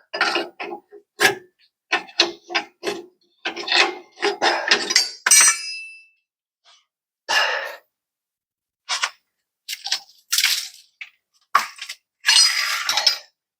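Metal tools and suspension parts clanking and clinking as they are handled under a van: irregular clusters of short knocks, one ringing metallic clink about five and a half seconds in, and a longer rattling scrape near the end.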